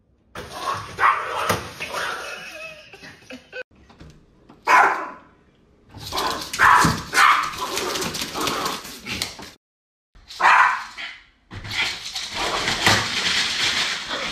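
Small fluffy dog barking and yapping excitedly in several separate bursts at mail coming through a front-door letter slot, with paper rustling as it shreds the mail.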